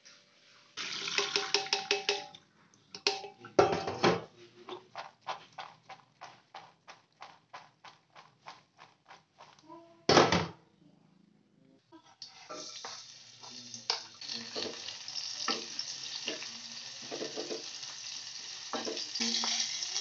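Kitchen work at the sink and stove: a steel bowl clattering under the running tap, then a plastic colander of washed greens shaken over the sink in an even rhythm of about three knocks a second. About twelve seconds in, oil starts sizzling steadily in a small pot as sliced shallots and chili fry, with the light knocks of a utensil against the pot.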